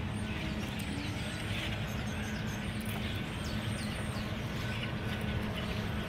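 A large flock of blackbirds calling, many short high calls overlapping one another, over a steady low rumble.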